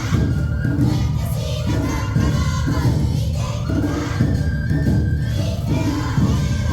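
Awa Odori festival band playing the dance music: a steady driving beat of drums over a melody line, with voices singing along. The accompaniment is typically taiko, shamisen, shinobue flute and kane bell.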